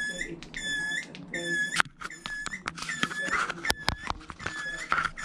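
Toilet cistern fill valve squeaking as the cistern refills: a short, high squeak repeating a little faster than once a second, the sign of a faulty fill valve that needs replacing. A few sharp knocks about two-thirds of the way through.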